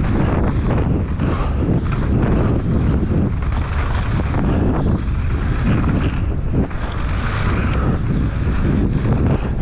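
Wind rushing over a helmet or chest camera's microphone as a mountain bike descends a dry, rocky dirt trail at speed, with the knobby tyres rolling over dirt and stones and scattered clicks and clatter from the bike over rough ground.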